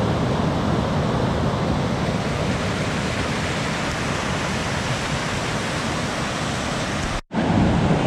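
Steady rushing of the Bomburu Ella waterfall and the cascade pouring into the rock pool, a dense noise heaviest in the low end. It cuts out for an instant near the end, then resumes.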